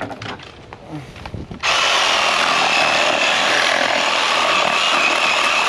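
A few light knocks, then an electric saw of the kind used here to cut through the pig's bones starts abruptly about a second and a half in and runs steadily and loudly, with a thin motor whine.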